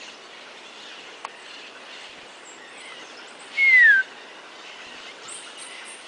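A bird's single loud clear whistle, about half a second long, gliding down in pitch midway through, over a steady outdoor hiss of river ambience.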